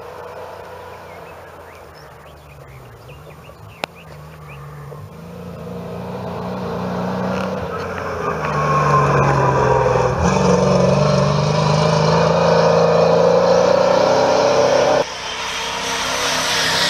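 Old rally trucks' engines running hard on a gravel stage: one truck approaches and passes, its engine note rising and dropping as it grows loud, then cuts off abruptly and another truck's engine is heard.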